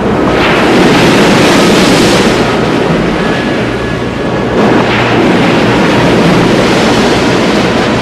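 Heavy storm surf and wind in a loud, continuous rush, with waves surging up twice, about half a second in and again near five seconds.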